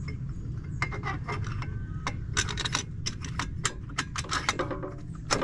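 Metal engine parts and hand tools being handled: quick irregular clicks, taps and clinks, a few of them ringing briefly, over a steady low rumble.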